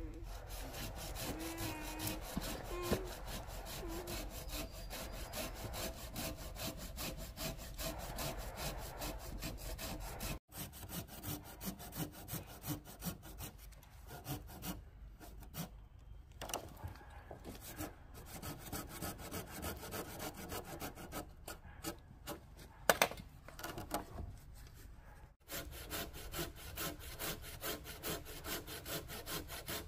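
Hand saw cutting through green bamboo poles in quick, steady back-and-forth strokes, with one sharp knock about two-thirds of the way through.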